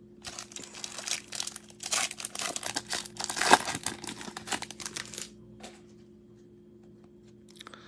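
Foil wrapper of a Bowman baseball card pack being torn open and crinkled, for about five seconds, loudest in the middle. After that come a few faint rustles as the cards are handled.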